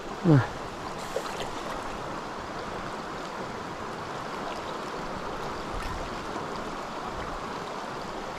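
Fast river current rushing steadily through a riffle. A short vocal sound comes right at the start.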